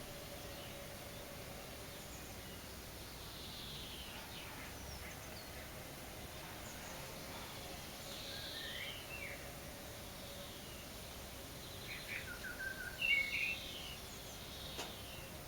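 A songbird singing short separate phrases of whistled, sweeping notes a few seconds apart, the loudest phrase, ending in quick twittering notes, near the end.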